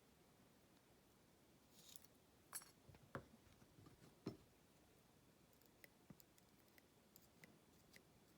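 Near silence broken by a few faint, sharp clicks, the small metal parts of a gutted padlock being handled, with lighter ticks towards the end.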